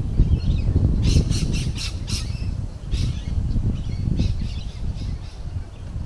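Birds calling, with a quick run of about five high notes about a second in and a few more calls later. Wind rumbles on the microphone throughout.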